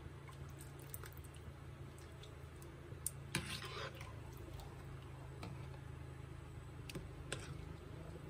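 Faint clicks of a metal ladle and spoon against a pan of meatballs in broth, with a short scrape a little past three seconds in, over a low steady hum.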